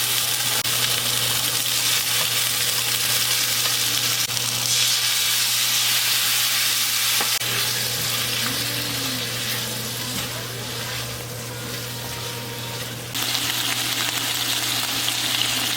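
Food sizzling in oil in a frying pan while it is stirred, a steady dense frying hiss. It eases off somewhat for a few seconds in the middle and comes back louder a little past three-quarters of the way through.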